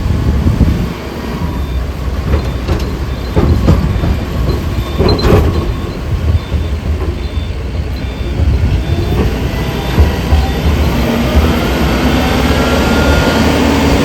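A heavy engine running under a loud low rumble, with several brief surges in the first half. In the second half the engine's pitch rises steadily as it speeds up.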